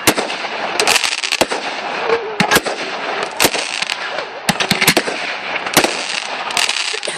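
Fireworks display: a rapid, irregular string of sharp bangs, several a second, over a steady crackle and hiss, with a few faint rising whistles.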